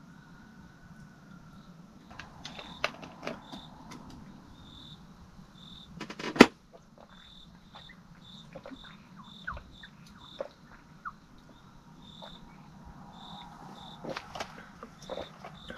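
Crickets chirping in short repeated pulses, with scattered handling clicks and one sharp, loud click about six seconds in.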